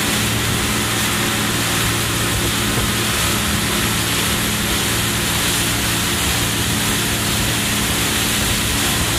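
Motorboat under way at speed: a steady engine drone with a continuous rush of wind and water.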